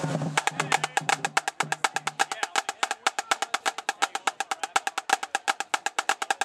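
Marching drumline playing a fast, even run of sharp, clicky drumstick strokes, about ten a second, that stops abruptly at the end.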